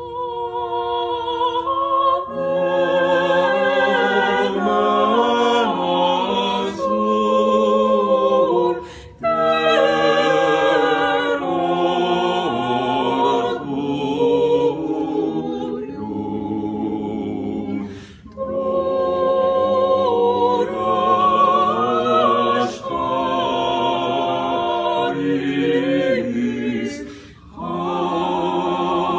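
An a cappella vocal ensemble singing in harmony in long held phrases. Short breaks come about every nine seconds.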